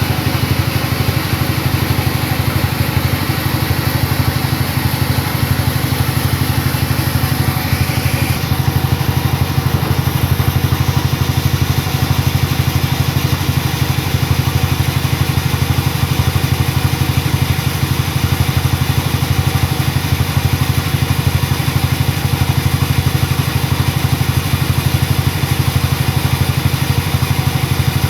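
A sawmill's engine running steadily at an even speed, with a fast regular pulse.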